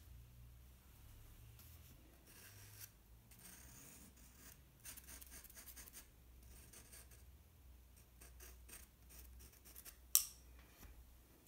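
Charcoal pencil and brush strokes scratching and rubbing on sketchbook paper in several quick runs. One sharp click about ten seconds in is the loudest sound.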